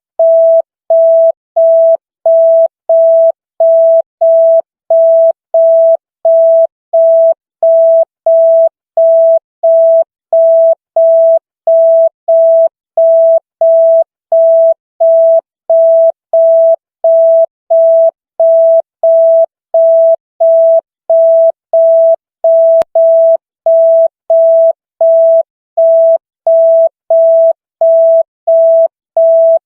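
Telephone signal tone: a single steady mid-pitched electronic beep, switched on and off evenly about one and a half times a second, like a busy tone.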